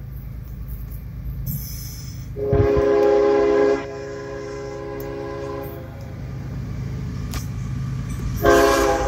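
Diesel locomotive air horn sounding: a long blast of about three seconds, loudest for its first second, then a second blast near the end, over a steady low rumble from the train.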